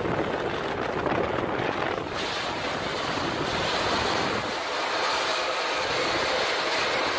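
Steel loading ramps of a car-carrier truck dragging along the asphalt, a steady rushing scrape as they throw sparks, growing hissier about two seconds in.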